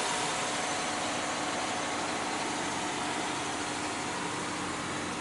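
Steady hiss and hum of an idling car engine, easing off slightly over the few seconds.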